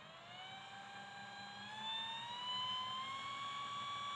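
Starter motor spinning with no load, powered through a 60-amp motor controller. Its whine rises steadily in pitch as the current is turned up from about 10 amps toward 15 amps.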